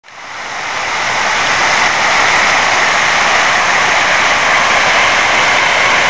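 Fountain jets spraying and splashing: a steady hiss of falling water that fades in over the first second or two.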